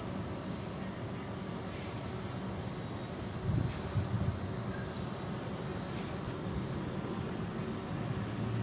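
Outdoor ambience: a steady high insect drone with short chirps over a low, steady engine-like hum. A few dull thumps come about three and a half to four seconds in.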